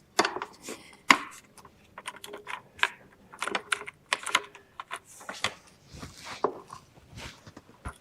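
Irregular clicks, knocks and rattles of hard parts being handled as a motorcycle tool kit is packed into the rear storage and the fittings around it are worked.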